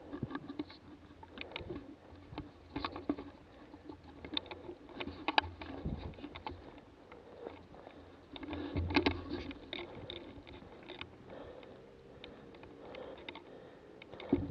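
Footsteps through dry forest undergrowth: leaves, ferns and twigs rustling, crackling and snapping underfoot in an uneven walking rhythm, busiest and loudest a little past the middle.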